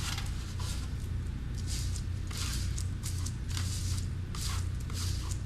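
Repeated short, irregular scraping strokes of a hand tool spreading wet RedGard waterproofing membrane over fiberglass cloth, over a steady low hum.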